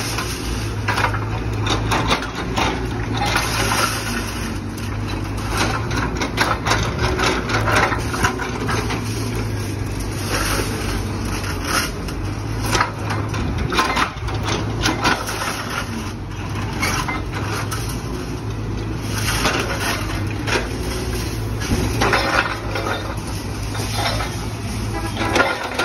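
Excavator diesel engine running steadily while its hydraulic crusher jaw breaks up reinforced concrete. Irregular cracking and crunching of concrete and falling rubble runs over the engine drone.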